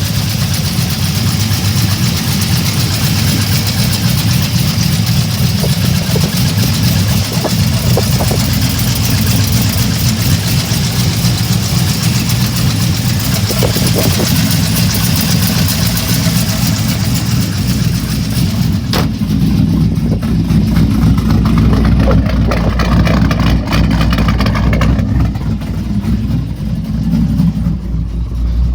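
GM LS3 6.2-litre pushrod V8 running with a rapid ticking in its sound, which the owner suspects is a lifter tick or rod knock. About two-thirds of the way through there is a single sharp click.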